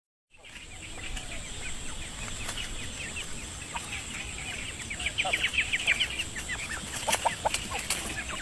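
A group of quail chirping and calling: many short, high, overlapping chirps, which grow busier about five seconds in.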